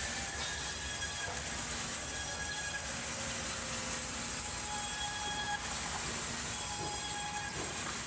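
Sawmill band saws running and cutting timber: a steady high hiss with faint whining tones that come and go.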